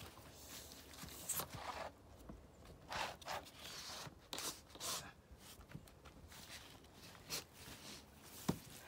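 A white vinyl skirting panel being worked into its track by hand: a scattering of short plastic scrapes and rustles, with a sharp click near the end.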